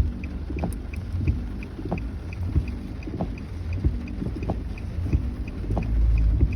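Inside a car driving on a wet freeway: steady low road and tyre rumble, with a soft regular tick about every two-thirds of a second and a fainter, quicker tick over it. The rumble grows louder near the end.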